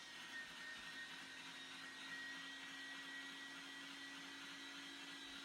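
Electric meat grinder running steadily under load as meat is fed through for a second pass: a constant motor hum with a thin high whine.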